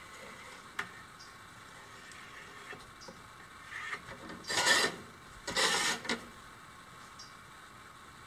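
Two rasping scrapes across a glazed ceramic floor tile while it is marked out against a steel ruler, each about half a second long, with a small click about a second in.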